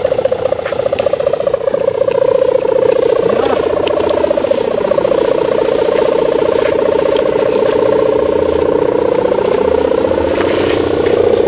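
Kite hummer (sendaren) of the 'gerr' type on a large flying kite, its plastic-film (mika) blade vibrating in the wind: a steady, loud buzzing drone whose pitch dips and wavers around the middle.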